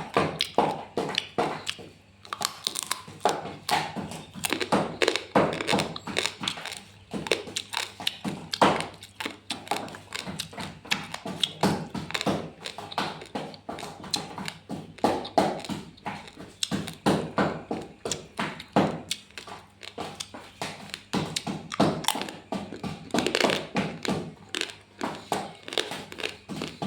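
Crab shells being cracked and handled: many rapid, irregular taps and knocks, several a second.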